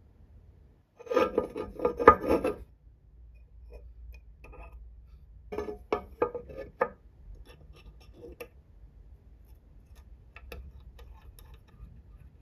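Small metal engine-model parts clicking and clinking against each other and the aluminium cylinder head as they are handled and fitted: a quick rattle of clicks about a second in, a run of about five sharper clicks around six seconds, then scattered light taps.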